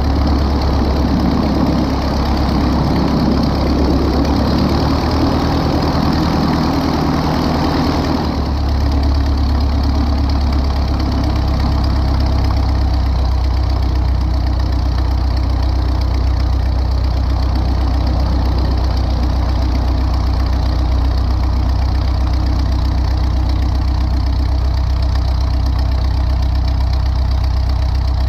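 Light aircraft's piston engine and propeller running at low power while taxiing, a steady low drone. About eight seconds in, the higher part of the sound falls away and the low drone carries on.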